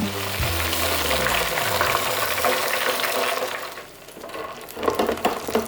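Chicken tenders deep-frying in hot oil: a loud, dense sizzle that drops away sharply about four seconds in, leaving a quieter, patchy sizzle.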